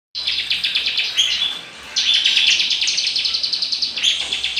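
Asian fairy-bluebird (cucak biru) singing a fast chattering string of high, rapidly repeated notes in the style of a bar-winged prinia (ciblek). The song breaks off briefly about one and a half seconds in, then resumes.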